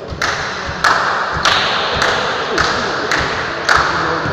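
A volleyball bounced repeatedly on the sports-hall floor before a serve: six or seven sharp, evenly spaced slaps, about one every 0.6 s, each echoing briefly in the hall.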